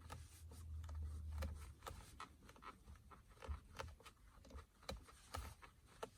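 Mazda CX-9 centre-console armrest lid creaking faintly in a string of short creaks and clicks as an elbow presses on its front edge, over a low hum in the first two seconds. The owner traces it to the lid's plastic rubbing against the console plastic where no foam padding was fitted.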